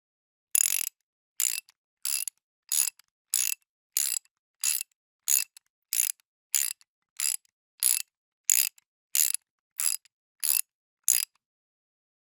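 A 1/2-inch drive socket ratchet clicking in short, quick bursts, about seventeen of them evenly spaced a little over half a second apart.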